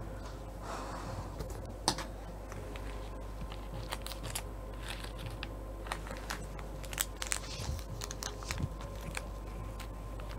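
Scattered light clicks and rattles of metal latch needles being pushed by hand along a domestic knitting machine's needle bed, over a faint steady hum.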